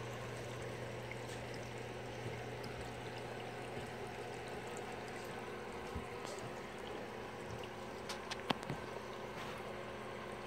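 Hang-on-back filter on a reef aquarium, its return water steadily pouring and trickling into the tank over a low steady hum. A few light clicks come about eight seconds in.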